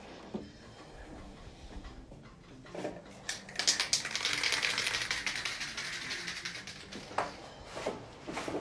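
Aerosol spray-paint can hissing in one burst of about three and a half seconds, starting about three seconds in, with a fine rapid sputter through the spray. A few light knocks come before it and near the end.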